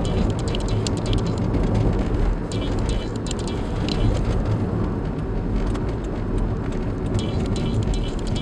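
Cabin noise of a 2005 Toyota Wish driving at about 40 km/h on asphalt: a steady low road and engine rumble, with clusters of short, high squeaks from under the dashboard panel. The owner cannot tell where the squeak is coming from.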